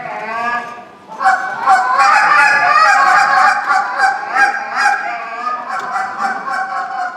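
Goose call blown by a contest caller in imitation of Canada geese: a fast, continuous run of honks and clucks, somewhat softer for the first second, then louder and fuller.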